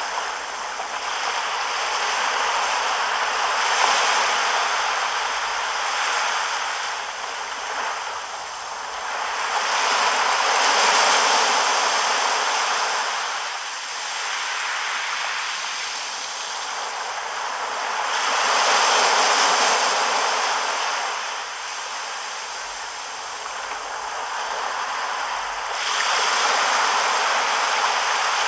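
Small surf breaking and washing up a sandy beach: a steady hiss of water that swells and fades about every eight seconds as each wave comes in and draws back.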